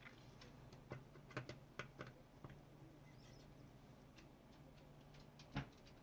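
Quiet, scattered light clicks and taps of small tools and parts being handled during hand soldering, several close together in the first couple of seconds and one sharper tap near the end, over a low steady hum.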